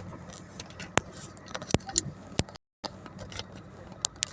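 Several sharp clicks and knocks over a steady low hum.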